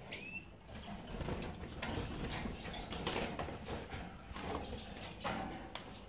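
Caged European goldfinches: a short chirp about a quarter of a second in, then scattered flutters and small clicks of the birds moving about the wire cages.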